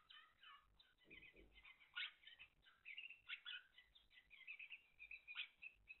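Timbrado canaries chirping and singing faintly: a string of short, high notes, running into a quick trill about four and a half to five and a half seconds in.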